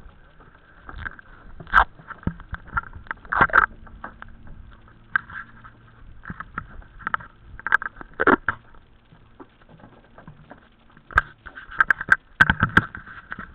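Handling noise from a small camera being moved and fixed in place: irregular knocks, taps and rubbing close to the microphone, coming thickest near the end.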